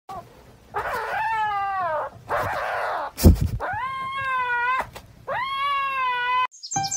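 Kitten meowing: four drawn-out, high-pitched cries of about a second each, with a sharp thump a little past the middle.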